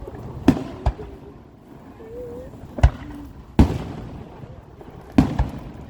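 Fireworks display: aerial shells bursting in a series of sharp bangs, about six in six seconds, some in close pairs, each followed by a rumbling echo.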